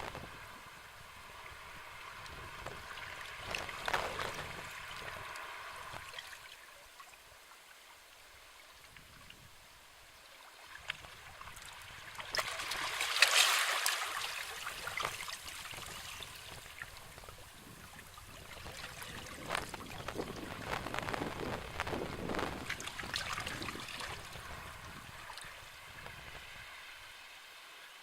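Sea waves washing ashore in three slow surges, each swelling into a hiss of moving water and draining away; the loudest comes about halfway through.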